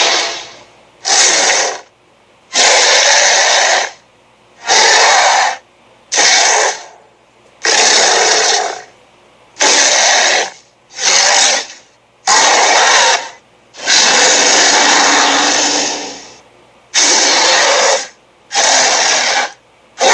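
A run of short cartoon sound effects played one after another: about a dozen noisy bursts, each around a second long, separated by brief silences.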